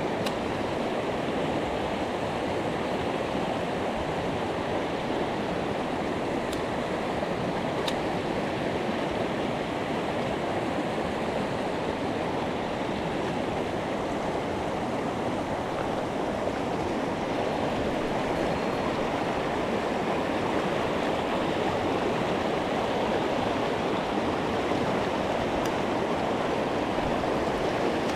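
Mountain stream rushing, a steady wash of flowing water.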